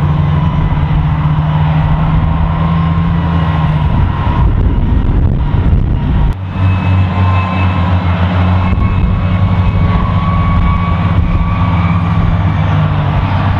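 Tow tractors hauling missile trailers, engines running steadily with a low hum and a faint whine above it. The sound changes abruptly about six seconds in.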